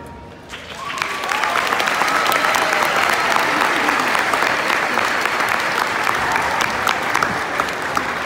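Audience applause breaking out about a second in, just as a concert band piece ends, then holding steady with scattered whoops and cheers.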